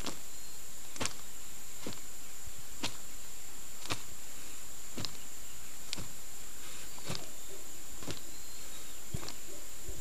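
Sharp snaps from fast White Crane Fist open-hand strikes, about one a second, nine in all, each a single short crack.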